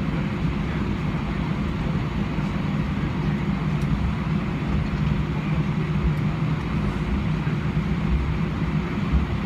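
Airbus A319 cabin noise while taxiing, heard from a window seat over the wing: the engines run at low taxi power with a steady hum and broad hiss that does not change.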